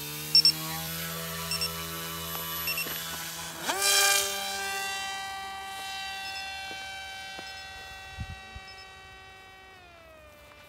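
Brushless electric motor and propeller of a ZOHD Dart XL flying wing: running at low idle, then spooling up sharply to full throttle about four seconds in as the plane is hand-launched. A steady high whine that slowly fades as the plane climbs away, easing down a little in pitch near the end.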